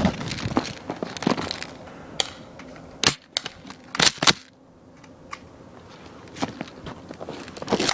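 Footsteps crunching through snow, then a few sharp snaps around three and four seconds in.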